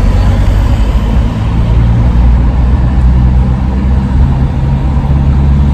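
Car cabin noise while driving: a steady low engine and road rumble.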